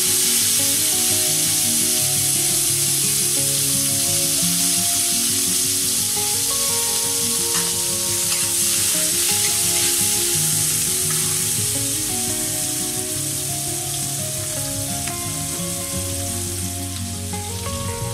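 Sliced onions sizzling hard in hot oil in a wok, stirred with a spatula, the loud hiss slowly easing off as the oil settles. Soft background music sits underneath.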